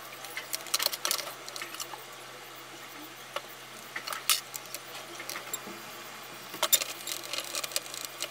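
Scattered light clicks and taps of hands handling a PC motherboard and small parts on a workbench while fitting replacement electrolytic capacitors. A few sharper knocks come about a second in and again in the second half.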